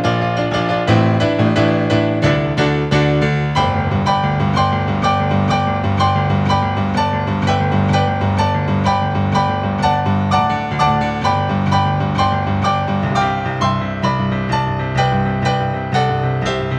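Solo piano playing a flowing piece: a quick stream of melody notes over bass chords that change every second or two.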